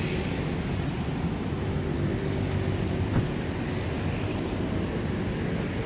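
Steady roadside traffic and vehicle engine noise, with a single short click about three seconds in.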